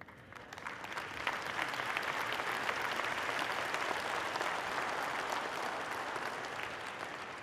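Audience applauding, swelling over the first second or two and fading away near the end.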